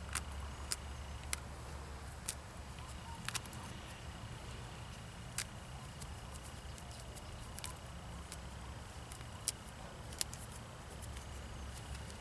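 Faint, scattered clicks and crackles of a pigeon being plucked by hand, feathers and skin tearing from the carcass. Underneath are a steady low rumble and a faint, steady high tone that drops out now and then.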